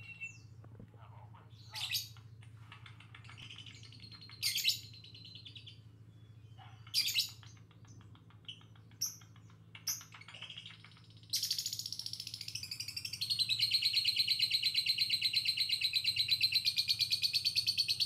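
Fischer's lovebird giving scattered sharp chirps, then breaking into a long, fast, continuous chattering trill about eleven seconds in.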